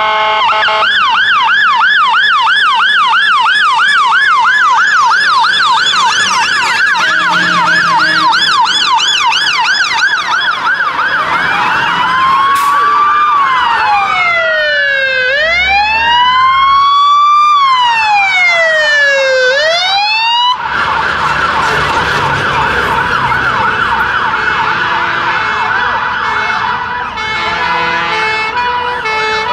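Sirens of a convoy of preserved fire engines. A fast yelping warble gives way to slow rising-and-falling wails from more than one siren at once. About two-thirds through these cut off suddenly, followed by another rapid warble and a stepped two-tone siren near the end.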